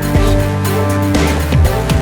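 Background music: an electronic track with heavy bass and a steady drum beat.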